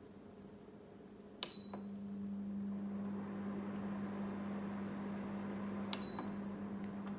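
Corona CD-P6315 dehumidifier: its control panel gives a short beep at a button press about a second and a half in, and the unit starts up with a steady low hum. A second beep follows about six seconds in.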